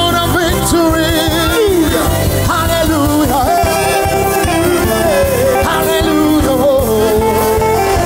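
Gospel praise music: voices singing over a band with a steady beat.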